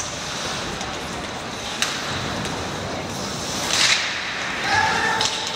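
Ice hockey play on the rink: skates scraping the ice, a sharp click about two seconds in, and a louder hissing scrape just before four seconds in.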